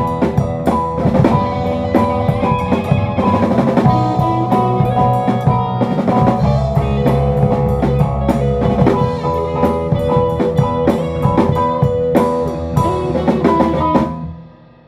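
A rock band playing an instrumental passage of a song, with a busy drum kit and guitar over sustained chords; the music drops away sharply near the end.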